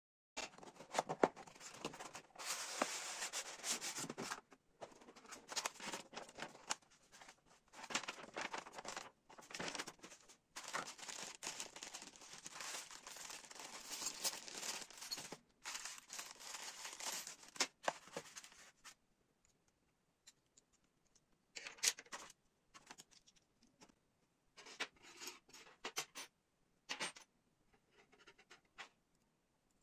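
Clear plastic bag crinkling and rustling as it is handled and opened, with the metal construction-set strips and parts inside clinking against each other. After about 19 seconds it gives way to sparse light clinks and taps of loose perforated metal strips being picked up and fitted together.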